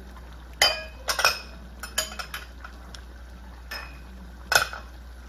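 Wooden spatula knocking against a metal wok: several short, sharp clinks with a brief ring, spaced irregularly, the loudest near the end.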